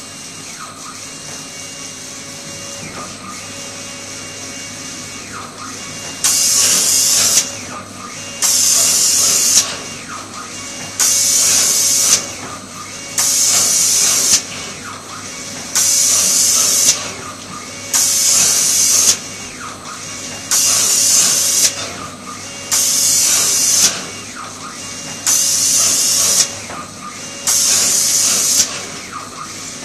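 Automatic flatbed spray finishing machine: its gantry drive whines steadily, then from about six seconds in the pneumatic spray guns hiss in regular bursts of about a second, one every two and a half seconds or so, as each pass lays coating over the MDF panels.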